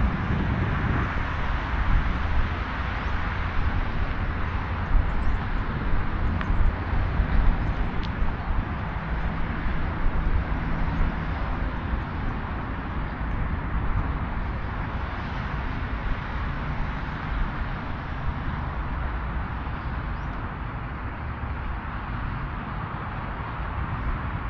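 Outdoor ambience dominated by a steady low rumble of traffic, slowly getting quieter.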